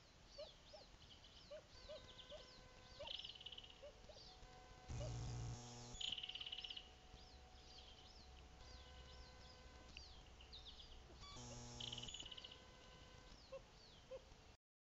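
Faint background chorus of high, repeated chirps and a few short trills from small wetland animals. It is cut across twice by a brief electrical buzz, the nest camera's own noise, about five seconds in and again a little before twelve seconds. No loon call is heard.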